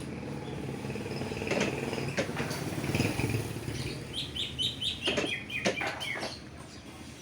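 Canary chirping a quick run of short high notes, some falling in pitch, from about four seconds in. A low engine-like hum under the first half fades away, and a few sharp clicks sound along the way.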